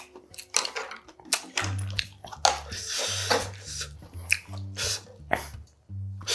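Soup being ladled from a metal ramen pot into a glass bowl with a wooden ladle: splashes and pouring of broth, with sharp clicks of ladle and chopsticks against the pot, bowl and mussel shells. A soft bass line of background music comes in about a second and a half in.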